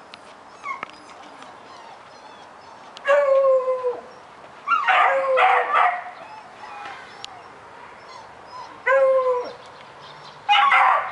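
Beagles baying at a rabbit: bouts of drawn-out howling barks, each sliding slightly down in pitch. They start about three seconds in and come again around five seconds, nine seconds and near the end.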